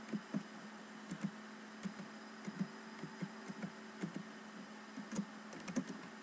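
Computer keyboard keys being typed, short uneven clicks at about three a second, over a steady low electrical hum and hiss.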